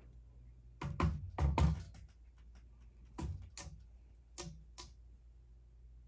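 Sharp knocks from a cat batting at the blades of a spinning ceiling fan. Four quick, loud hits come about a second in, then two pairs of lighter ones.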